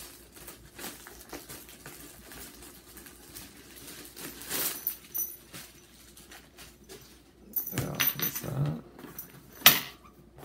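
Clear plastic packaging bag rustling and crinkling as it is handled and pulled off a new garment bag, in irregular bursts. A single sharp click comes about a second before the end and is the loudest sound.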